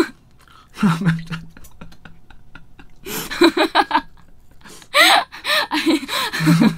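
Two people laughing in breathy, gasping bouts, three times.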